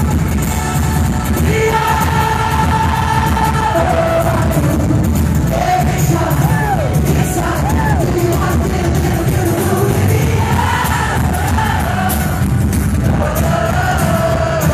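Live rock band playing a song: a sung lead vocal over guitars and drums, heard loud through a phone's microphone in the crowd, with crowd noise underneath.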